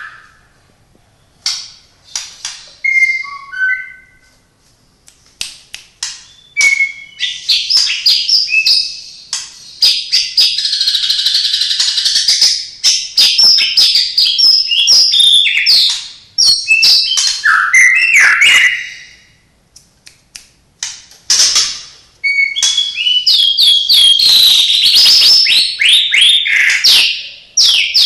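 White-rumped shama (murai batu) singing: a few short whistled notes at first, then long loud runs of rapid, varied whistles and trills with short pauses between them, its song filled with mimicked calls of other birds such as canary, lovebird and sparrow.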